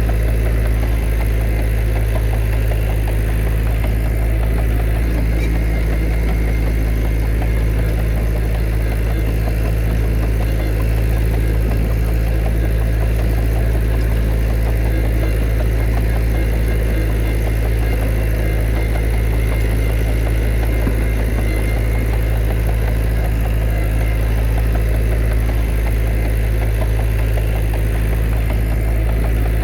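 Diesel engine of heavy earthmoving machinery running steadily with a constant deep hum and no change in speed.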